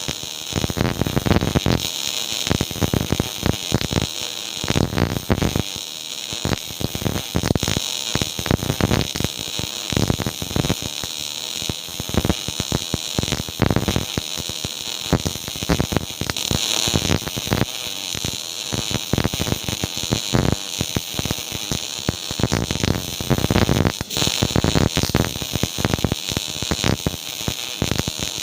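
MIG welding arc running, a continuous dense crackle of rapid pops and sizzle.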